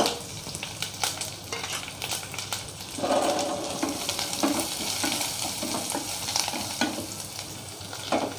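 Crushed garlic, peppercorns and cumin frying in hot sunflower oil with mustard seeds, fenugreek, dried red chillies and curry leaves in a nonstick pot: a steady sizzle with many small crackles. From about three seconds in, a wooden spatula stirs and scrapes through the tempering, and the sizzle grows louder while it does.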